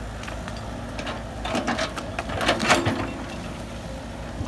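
Heavy diesel engine of earth-moving machinery running steadily, with a quick cluster of clattering metal knocks about a second and a half to three seconds in.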